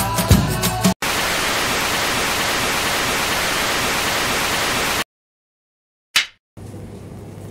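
Intro music ends about a second in and is replaced by a steady hiss of TV static for about four seconds, which cuts off suddenly into silence. About six seconds in comes a single short clapperboard snap sound effect, followed by faint room tone.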